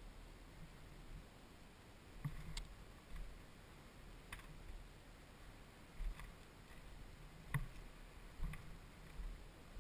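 Sparse, sharp clicks and light knocks, about one every second or so at uneven spacing, from footsteps over loose rock and weathered timber debris. A faint, uneven low rumble of wind on the microphone runs underneath.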